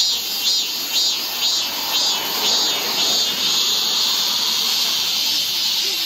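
Cicada singing: a high, pulsing call of about two pulses a second that runs together into one steady buzz about three seconds in.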